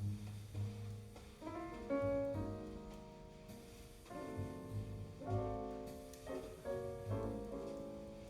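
Jazz piano trio music played back over Sound Lab G9-7C electrostatic loudspeakers and heard in the room: piano phrases and chords over double bass notes.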